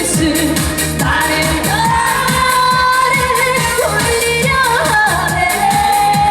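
Live trot music: a singer holding long notes over a band backing track with a steady beat.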